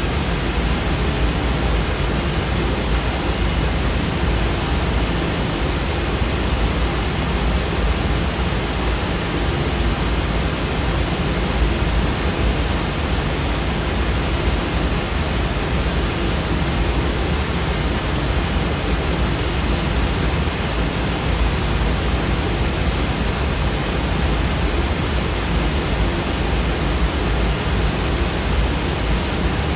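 Generated white-noise sound effect: a steady, unchanging hiss with more weight in the low end.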